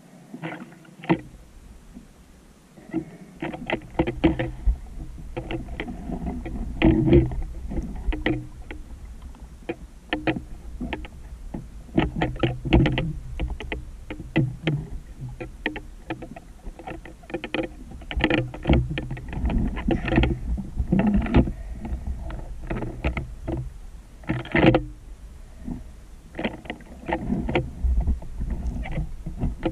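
Underwater noise of a freediver swimming with a speargun: a low rush of water against the camera housing, with many irregular clicks and knocks. It starts about a second in.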